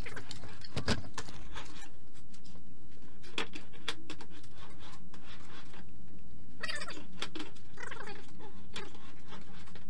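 Metallic clicks, knocks and short squeaks of a hand roller seaming tool being worked along the folded edge of a steel sheet, over a steady low hum.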